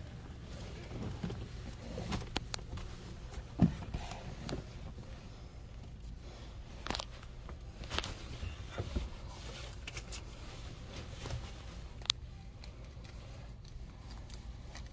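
Handling noise inside a parked car's cabin: scattered light clicks and knocks, the loudest a little under four seconds in, over a low steady hum.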